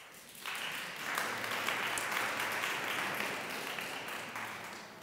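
Audience applauding, breaking out about half a second in, swelling and then fading near the end.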